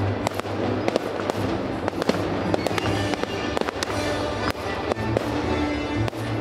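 A fireworks display firing: a rapid run of sharp bangs and crackles from bursting shells and rising comets, over music.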